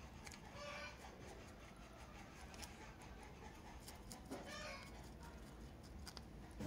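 Faint clicks and ticks of small steel bolts and metal parts being handled as a CNG regulator is taken apart by hand, over a low steady background rumble. A brief faint call sounds about half a second in and again about four and a half seconds in.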